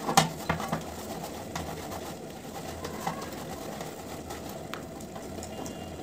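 Roti dough being kneaded by hand in a steel plate: soft pressing and squashing, with a few light knocks against the metal, the sharpest about a quarter second in.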